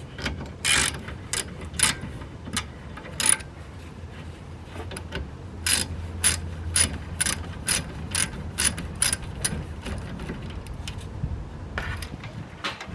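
Hand ratchet wrench clicking as the rear brake caliper bracket bolts are turned out. The clicks come in spurts, with a steady run of about three a second in the middle.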